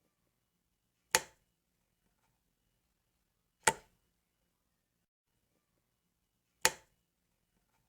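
Light switch being flicked: three single sharp clicks, each about two and a half to three seconds apart.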